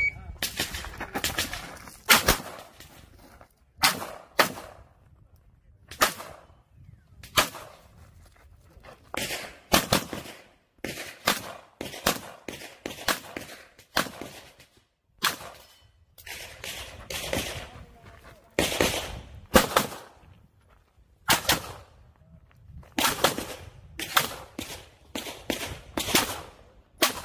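Pistol shots fired during a practical shooting course of fire: sharp reports in quick pairs and short strings, separated by gaps of a second or two while the shooter moves between positions, each shot ringing briefly off the range.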